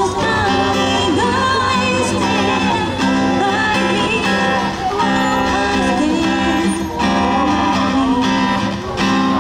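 Live acoustic guitar accompanying a singer through a small PA, a steady song with brief dips between phrases.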